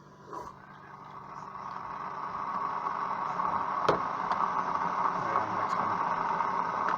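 Single-serve K-cup coffee brewer running a brew: a steady hissing hum that swells over the first few seconds and then holds, with a sharp click about four seconds in.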